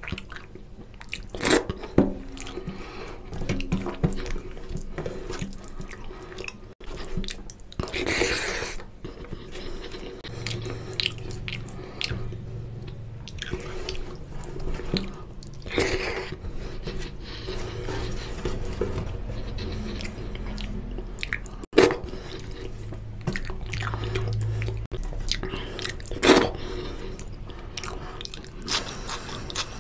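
Close-miked eating by hand: fingers squishing oily mutton curry and rice against a steel plate, and mouth chewing, with a few sharp, louder smacks scattered through.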